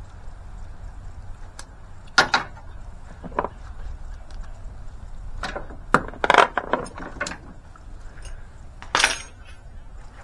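Scattered metallic clinks and knocks of hand tools on metal, in an irregular string with a busier cluster about six seconds in, over a steady low hum.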